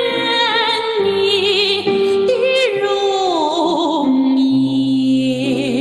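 A woman sings sustained high notes in Chinese with wide vibrato over a sustained accompaniment, her voice sliding down to lower notes about halfway through. It is a demonstration of a comfortable high register: powerful and carrying but not harsh, with the throat not squeezed.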